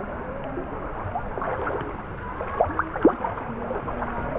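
Muffled water sloshing and splashing as people swim, with two louder splashes about two and a half and three seconds in.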